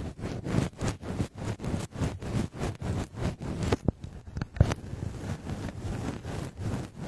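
ASMR triggers on a binaural microphone: rhythmic rubbing and brushing strokes across the mic, about three a second, with a couple of sharper clicks about halfway through.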